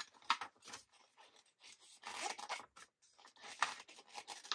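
Glossy photo paper rustling and rubbing as the rolled chip-bag wrapper is handled and its adhesive seam pressed shut, in a few short scrapes.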